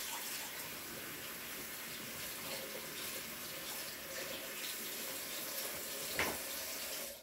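Bathroom faucet running steadily into a sink basin, with a short knock near the end. The water is shut off abruptly right at the close.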